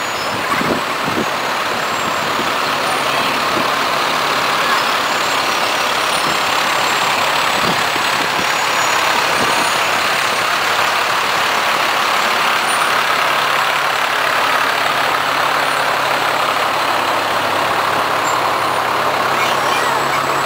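Fire trucks' diesel engines running steadily as they drive slowly past at close range: an aerial ladder truck going by, then the next fire engine coming up.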